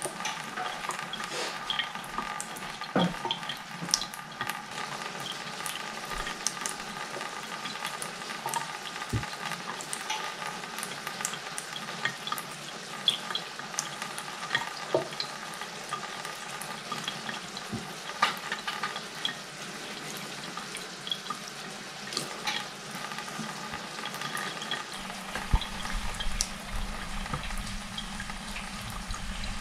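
A thin stream of tap water running into a kitchen sink, spattering with many small irregular splashes as a cat paws at the stream.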